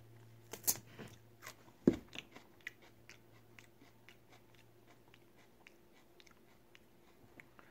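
A person bites into a raw onion and chews it. Two loud crisp crunches come in the first two seconds, then smaller crunches about every half second, growing fainter as the onion is chewed down.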